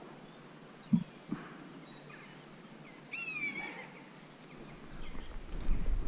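Quiet riverbank outdoors: a sharp knock about a second in with a softer one just after, then a single bird call lasting about half a second around three seconds in. From about five seconds in, a low rumble on the microphone as the camera moves.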